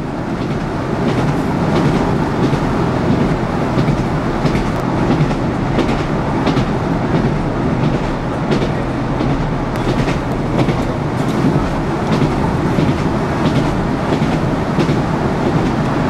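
Train running along the track, heard from inside a carriage: a steady rumble with clicks of the wheels over the rail joints every second or so.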